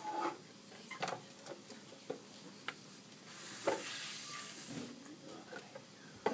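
Handling noise: rustling with scattered light clicks and knocks as a plastic anatomical model is picked up and moved and a handheld camera is jostled. About three seconds in, a steady hissing rustle lasts for about a second and a half.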